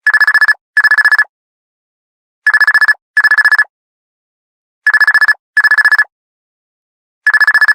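Old phone ringtone: a high electronic trill that rings in pairs of short rings, with a pause after each pair, repeating about every two and a half seconds.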